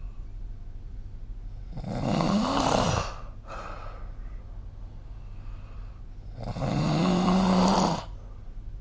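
A sleeping person snoring, two snores about four and a half seconds apart, each lasting just over a second. The first rises and then falls in pitch and is followed by a short breathy sound. The second holds a steady low pitch.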